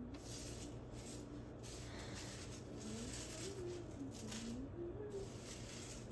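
Soft rustling of paper towels and dried rose petals being moved and sorted by hand. Under it, a faint, slow, low-pitched tune wanders up and down.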